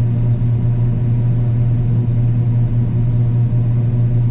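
Combine harvester running steadily under load while cutting soybeans, heard from inside the cab as a loud, even drone with a strong low hum.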